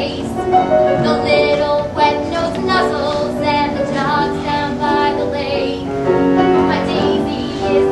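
A woman singing a musical-comedy song over instrumental accompaniment.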